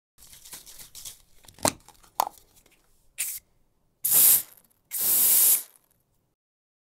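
Aerosol spray-paint can sound effect: two sharp clicks, then three hisses of spray, a short one followed by two longer, louder ones about a second apart.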